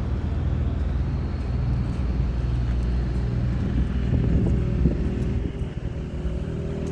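Strong wind blowing and buffeting the microphone, a loud low rumble that eases slightly a little after five seconds in.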